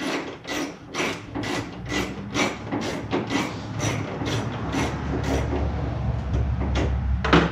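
Micro wrench working a headlight-assembly bolt loose: a quick, even run of clicks, about three a second. A low rumble comes in underneath in the second half.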